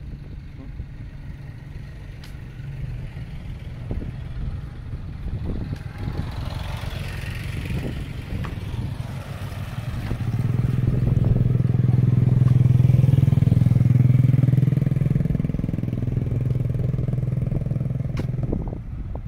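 Small motor scooters riding along a narrow concrete quay, their engines humming steadily. The engine sound grows much louder from about ten seconds in as a scooter passes close by, then drops away shortly before the end.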